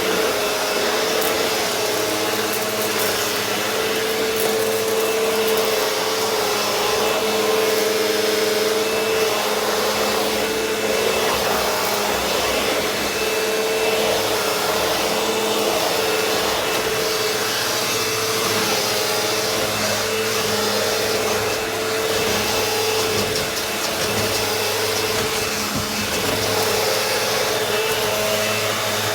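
Eureka The Boss Victory upright vacuum cleaner running steadily, a constant motor whine over the rush of air, as it picks up everyday dirt. A few faint crackles of grit come near the start.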